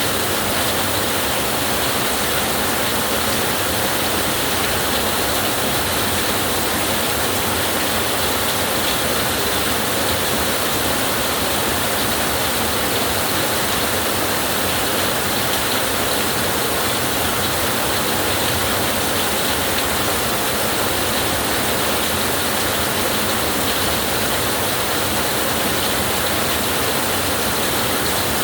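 Steady heavy rainfall, an even hiss with no breaks or thunderclaps.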